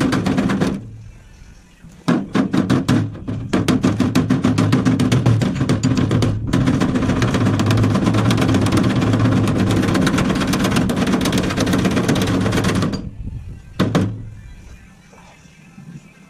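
Pneumatic air hammer (air chisel) rattling against a sheet-steel door panel, run in bursts: a short burst, a pause of about a second, then a long burst of about eleven seconds with two brief breaks, and one last short burst near the end.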